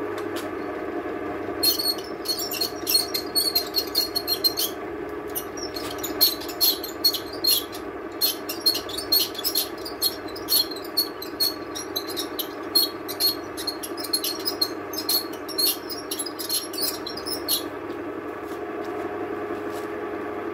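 Milling machine running with an end mill cutting a flat along a rifle barrel for its octagon. From about two seconds in, the cut gives dense, irregular sharp ticks and crackles over the steady motor hum; near the end the ticking stops and the machine runs on.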